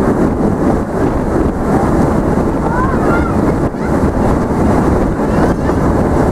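Narrow-gauge forest railway train running, heard from aboard: a steady rumble of the moving train mixed with wind on the microphone.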